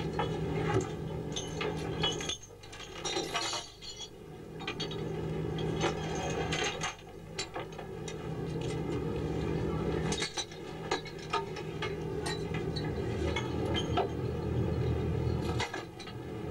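Steel chain and shackles clinking and knocking as a wire is unhooked from a trawl net, over the steady hum of a fishing boat's engine.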